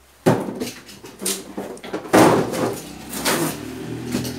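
Cardboard shipping boxes being handled and shifted on a stack: a series of knocks, scrapes and rustles of cardboard, the loudest knock about two seconds in.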